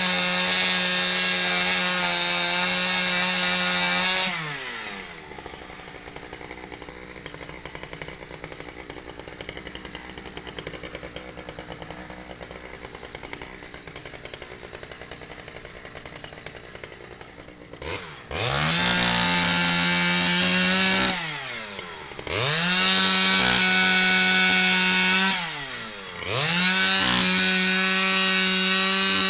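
Chainsaw running at high revs, dropping to idle after about four seconds and idling for a long stretch. It then revs back up three times with short dips between.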